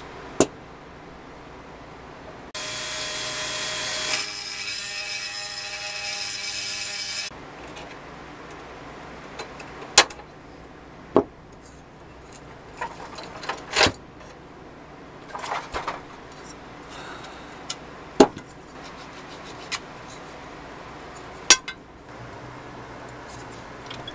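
A small high-speed rotary tool runs steadily for about five seconds, starting and stopping abruptly. The rest is sharp metal clicks and taps from hand tools on the rusty steel parts of a vintage Tonka toy forklift, with some rattling handling.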